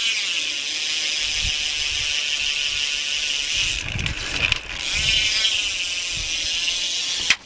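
A BMX rear wheel spinning freely, its hub's pawls ratcheting so fast they blend into a steady buzz, with a short dip about four seconds in.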